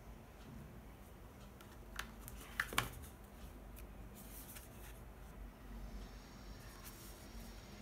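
Close-miked handling of phone packaging by hand: a few sharp clicks and taps about two to three seconds in, then soft rustling and scraping near the end.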